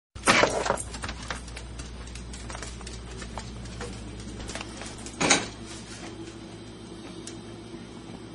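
A crusty baguette held crosswise in a small dog's mouth knocks against a door frame and cabinet, with loud knocks near the start and again about five seconds in, and fainter ticks between.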